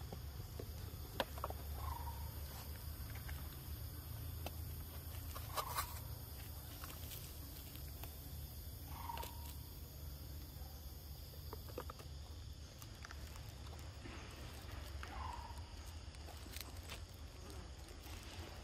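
Four short, soft animal calls a few seconds apart, over scattered light clicks and rustles and a steady low rumble.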